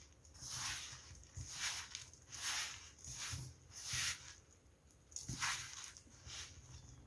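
Hands kneading crumbly corn-flour and polvilho dough in an aluminium bowl: a run of squishing, rustling strokes, roughly one a second.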